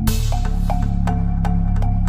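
Background electronic music: a steady beat of light clicks over sustained low synth notes, with the chord changing and a brief hissing wash right at the start.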